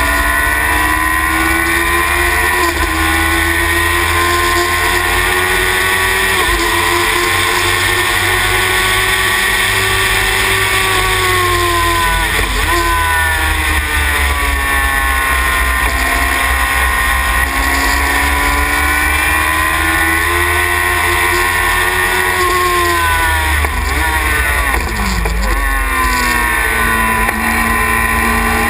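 Sylva Phoenix racing car's engine heard from onboard at race speed, revs climbing steadily through the gears, then falling away sharply about halfway through and again near the end as the car slows for corners, with a steady rumble and wind noise underneath.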